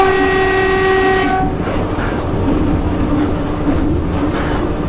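A locomotive horn gives one steady blast of about a second and a half at the very start. Under it and after it is the continuous running noise of a moving electric train, with rail clatter.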